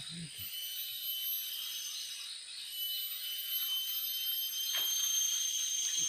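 Chorus of insects and birds: high, steady trilling tones with pulsing chirps over them, the high steady tone getting louder from about halfway in.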